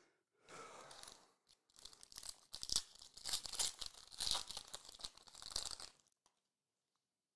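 Foil wrapper of a 2021-22 Panini Recon basketball card pack being torn open and crinkled by hand. It starts with a short rustle, then comes a dense crackling tear lasting about four seconds that stops about six seconds in.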